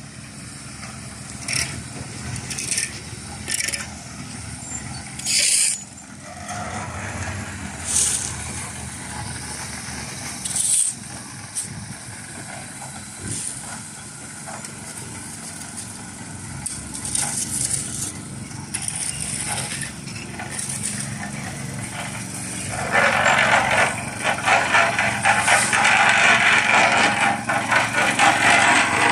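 A small engine runs steadily, typical of a petrol-driven concrete vibrator on a pour, with scattered sharp knocks and scrapes over it. About two-thirds of the way through, a loud rasping scrape starts and repeats quickly, becoming the loudest sound.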